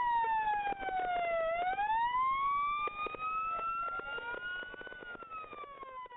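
Emergency vehicle siren wailing: its pitch falls for about a second and a half, rises slowly over the next few seconds, then falls again near the end, with faint crackles underneath.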